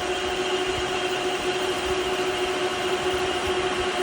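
Metal lathe spindle running at about 600 RPM while a carbide parting tool cuts into 1-inch steel rod under slow constant power feed: a steady drone with a steady high whine over it.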